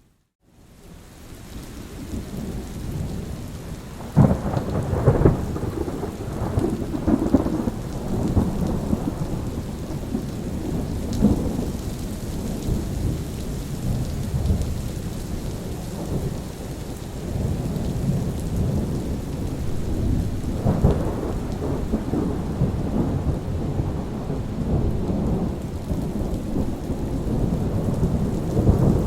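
Steady rain falling, with thunder rolling in heavy low rumbles about four seconds in and again about twenty seconds in. The sound fades in from a brief silence at the very start.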